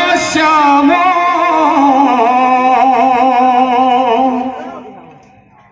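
A man singing one long, drawn-out devotional kirtan phrase into a microphone, the held note wavering with vocal ornaments. It fades away about four and a half seconds in, leaving a short pause.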